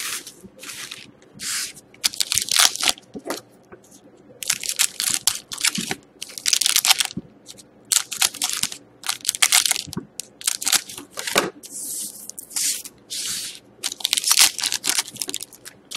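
Foil trading-card packs being handled and cut open with scissors: repeated crinkling and crackling of the foil wrappers in short bursts.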